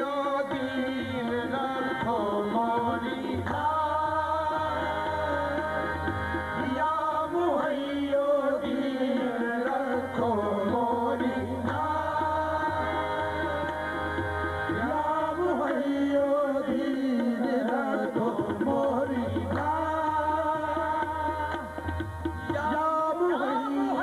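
Qawwali music: harmoniums playing under a lead voice singing in long, gliding phrases, with tabla accompaniment.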